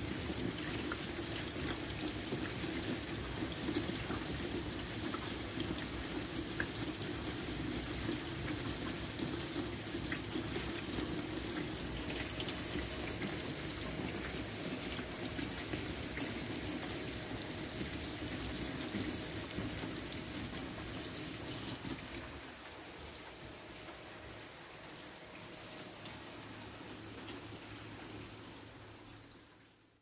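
Steady rain falling onto a wet, puddled walkway. About two-thirds of the way through, the deeper part of the sound drops away and it gets a little quieter, then it fades out at the very end.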